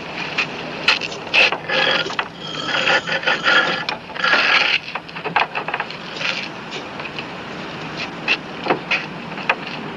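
An old wooden shed door creaking and scraping as it is pulled open, with scattered knocks and rattles; the creaking is thickest in the first half.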